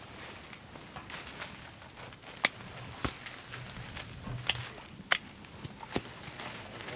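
Yuzu tree leaves and branches rustling as fruit is picked by hand, with a few sharp snaps, the loudest about two and a half and five seconds in.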